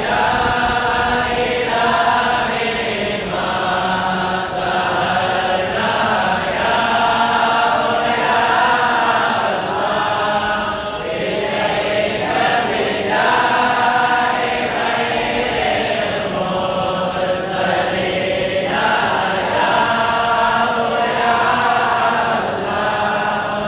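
A group of voices chanting devotional verses together, sung in short unaccompanied phrases one after another.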